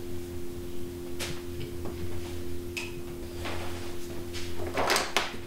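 A steady low electrical hum with a few scattered knocks and rustles of handling. The loudest is a short clatter about five seconds in.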